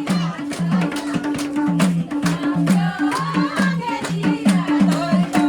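Background music: a song with a steady drum beat, a repeating bass line and a singing voice.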